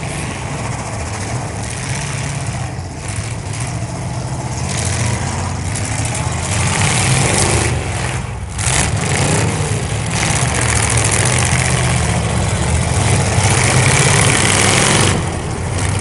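Several demolition derby cars' engines running and revving together, growing louder from about six seconds in.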